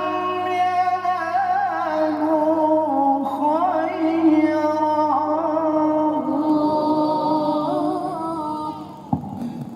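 Melodic Qur'an recitation (tilawah): a qari holds one long ornamented phrase that fades out about nine seconds in, followed by a short knock.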